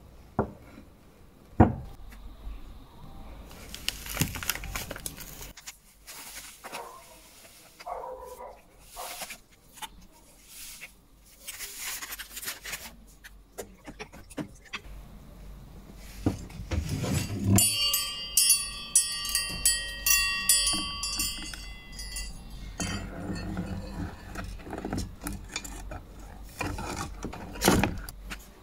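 Workshop handling noises: sharp clicks of loose steel scissor parts and screws on a wooden board, hands in the water of an electrolysis bucket, and a stretch of several seconds of high squealing scraping with a rattle in the middle, ending with a sharp knock.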